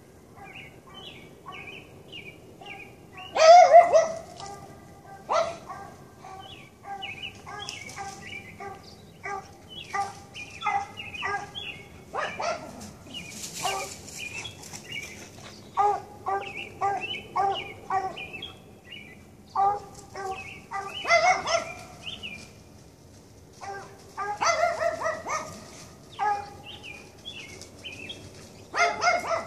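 Repeated animal barks and calls. There are loud bouts about three seconds in, around twenty seconds in, around twenty-five seconds in and near the end, over a run of quicker, fainter calls.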